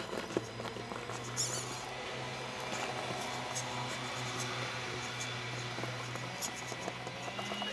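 Tamiya CR-01 Unimog radio-controlled rock crawler grinding slowly up rocks: a steady electric-motor and gearbox whine, with small clicks and scrapes from the tyres on stone. The motor speeds up briefly near the end.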